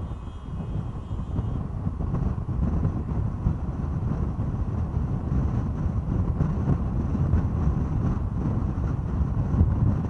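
A car driving at highway speed: a steady, loud low rumble of road and wind noise on the camera's microphone.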